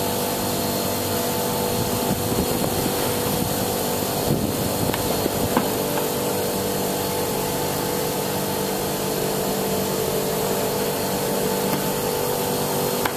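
Steady mechanical hum of dairy machinery running, holding several steady tones, with a few light clicks about four to six seconds in.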